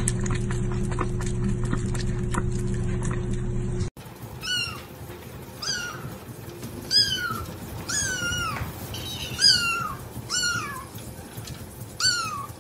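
A kitten meowing over and over, about eight short, high calls that each fall in pitch, starting about four seconds in. Before that, a steady hum runs and cuts off abruptly.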